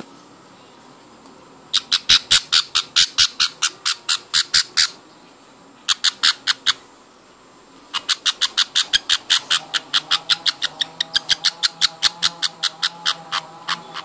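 Baby budgerigar chick giving rapid, sharp begging cheeps while being syringe-fed, about five short calls a second in three runs, the last one the longest.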